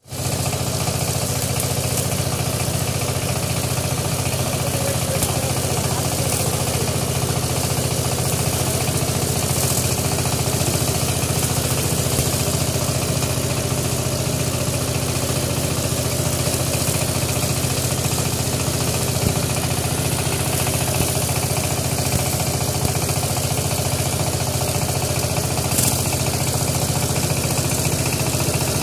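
Single-cylinder S195 diesel engine of a 12 HP power tiller running steadily with an even, unchanging beat.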